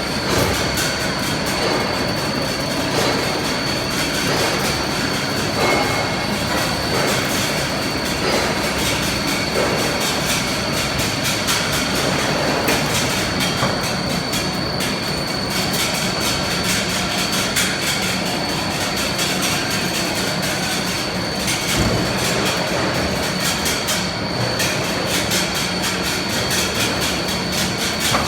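Pulley wire drawing machine running steadily, wire being drawn through its dies onto the turning drums, with a constant high whine and a dense metallic rattle over a low hum.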